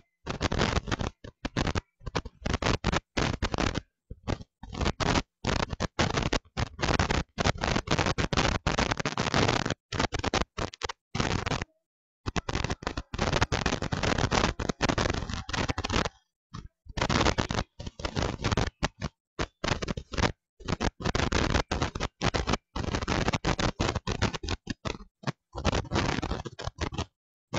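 Loud crackling noise, broken again and again by sudden dropouts to dead silence: a glitching, damaged audio track.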